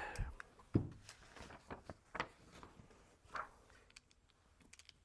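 Scattered handling noises: light knocks, clicks and rustling from someone moving about and handling things, with a few faint sharp clicks near the end.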